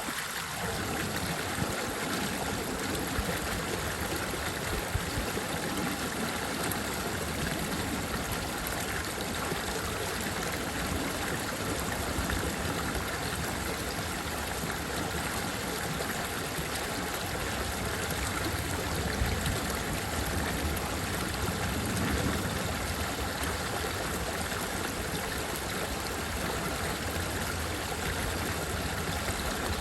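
Running water, a steady continuous rush like a stream flowing.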